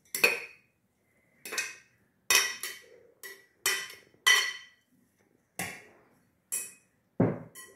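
Metal slotted spoon scraping and knocking against a glass bowl and an aluminium pot while grated pumpkin is scraped out into the pot: about ten separate clinks and scrapes, the last one a duller knock.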